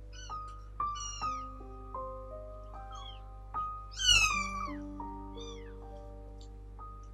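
Three-week-old kitten mewing: about six short, high mews, each falling in pitch, the loudest and longest about four seconds in. Gentle piano music plays under them.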